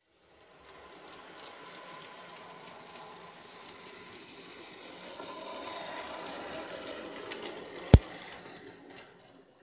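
N-gauge model train running on the track, its motor and wheels making a steady rattle with a faint whine that grows louder as it comes close, then fades. A single sharp loud click as it passes near the end.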